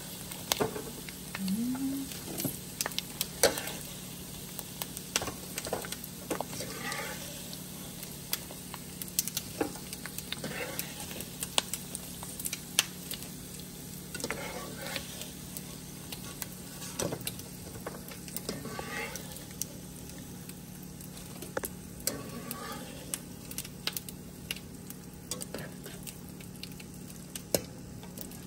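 Pork rinds frying in hot oil in a pan: a steady sizzle full of crackles and pops, with a metal slotted skimmer stirring and scooping the puffed skins out about every couple of seconds.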